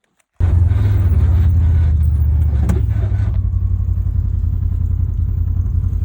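Motor vehicle engine running: a steady low drone with a fine rapid pulse that starts abruptly about half a second in.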